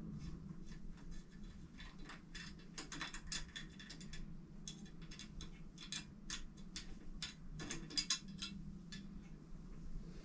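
Light, irregular metal clicks and ticks, several a second, from bicycle stem clamp parts and small tools being handled while the handlebar clamp is fitted. A faint steady low hum runs underneath.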